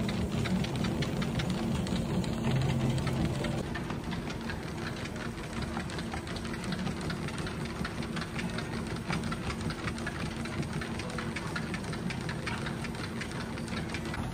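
A machine running steadily: a low hum with fast, dense ticking over it, a little quieter after about three and a half seconds.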